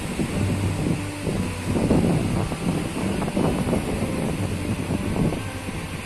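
Wind buffeting the phone's microphone at the seashore: an uneven low rumble that swells and drops in gusts.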